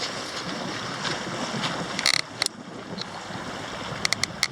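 Wind buffeting the microphone over the steady rush of water along a motoring sailing yacht's hull. A couple of sharp clicks come about two seconds in, and a quick run of four near the end.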